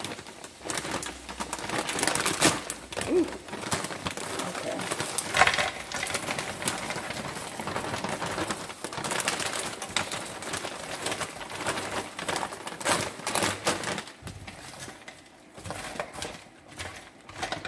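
Frozen stir-fry vegetables poured from a plastic bag into a pan of hot garlic butter: the bag crinkles and the vegetables crackle and sizzle as they land.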